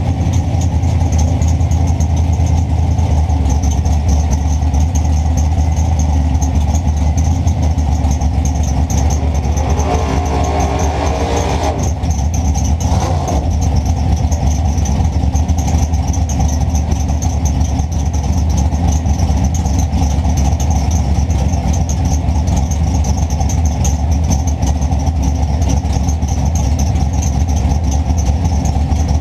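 Drag car's V8 engine idling with a loud, steady low rumble. About ten seconds in, a higher-pitched sound rises over it for a couple of seconds.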